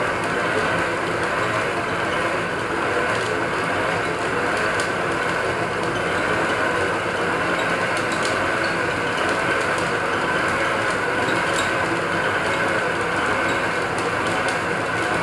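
Small metal lathe running steadily, its chuck spinning while a cut is fed by hand. Even mechanical noise with a few faint ticks.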